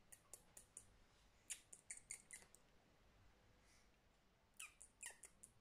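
Budgerigar chirping softly: quick runs of short, high chirps and clicks, with a few calls falling in pitch about four and a half seconds in.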